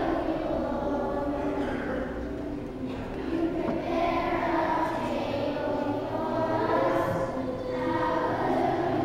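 Children's choir singing together.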